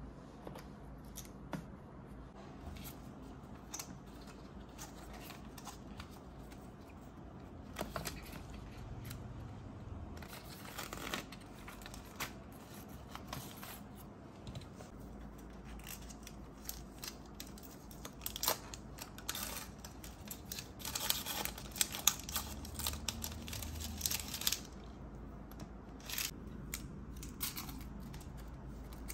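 Laptop box and its paper packaging being handled and opened by hand. Small clicks and rustles throughout, with longer stretches of rustling and tearing about ten seconds in and again from about twenty to twenty-five seconds.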